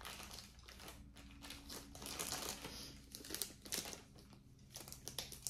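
Faint crinkling and rustling of packaging being handled, in short irregular bursts, over a steady low hum.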